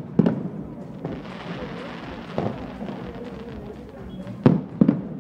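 Aerial firework shells bursting: a sharp bang just after the start, another about halfway through, and two in quick succession near the end, with a steady hiss between them.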